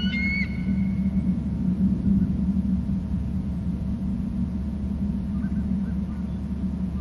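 Steady low rumble with the end of a bald eagle's high, piping call in the first half second, and a few faint short calls near the end.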